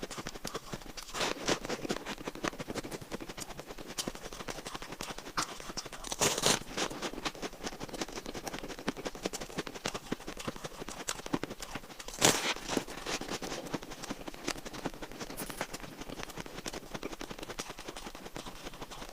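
Close-up crunching and chewing of shaved ice in the mouth: a continuous crackle of many small crunches, with louder bites a second or so in, about six seconds in and about twelve seconds in.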